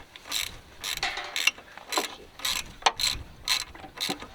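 Hand ratchet wrench being worked on a bolt, about two strokes a second, each stroke a short clicking rasp.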